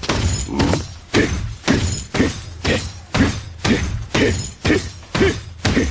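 Boxing-glove punches landing in a steady rhythm, about two blows a second.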